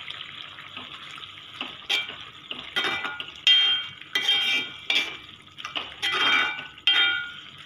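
Spoon stirring a thick potato stew in a metal pot, knocking and scraping against the pot's sides in quick uneven strokes with short metallic rings. The strokes start about two seconds in.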